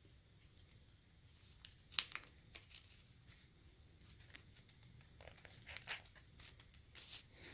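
An alcohol prep pad's packet being torn open and crinkled by hand: faint, scattered crinkles and small ticks, the sharpest about two seconds in.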